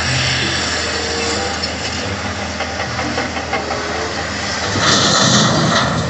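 Heavy diesel engines of a wheel loader and a Volvo A45G articulated dump truck running while the loader works. About five seconds in the sound grows louder and hissier as the loader lifts its bucket of rock over the truck's bed.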